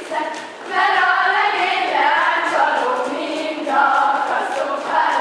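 A group of young girls singing a folk song together, held notes in phrases with a short break about half a second in and a brief dip near four seconds.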